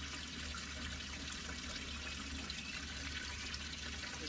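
Steady trickle of running water over a low, steady hum.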